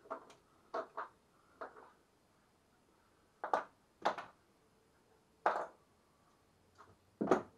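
Hard objects being handled and set down: a series of separate short knocks and clatters, several seconds apart in places, with the loudest near the end.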